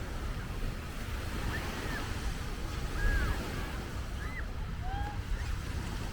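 Sea waves washing onto a beach, with wind rumbling on the microphone.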